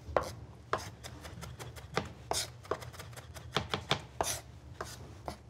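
Chef's knife chopping onion on a wooden cutting board: an uneven series of short knocks as the blade strikes the board, roughly two or three a second.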